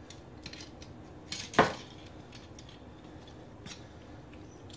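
Metal rotisserie spit fork of a Cajun Bandit kit clinking against the steel spit rod as it is slid onto the spit: one sharp clink about a second and a half in, with a few lighter ticks around it.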